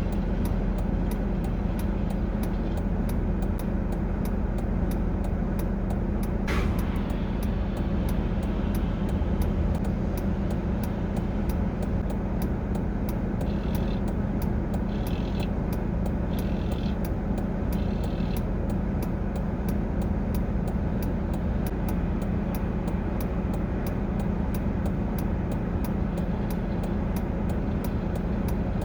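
A vehicle engine idling steadily at the roadside, with a constant low hum. Four short higher-pitched bursts come about halfway through.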